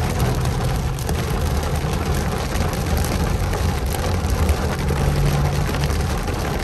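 Heavy rain beating on a car's roof and windshield, a dense, steady hiss of drops, heard from inside the car over the low hum of the car driving.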